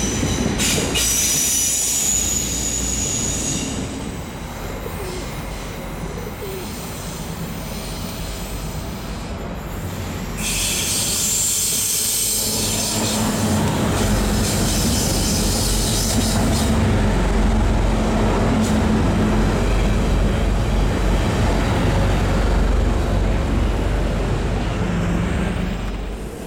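DSB IC3 diesel multiple units running on curved track, their wheels squealing against the rails near the start and again from about ten seconds in. A heavier low rumble from the train runs through the second half.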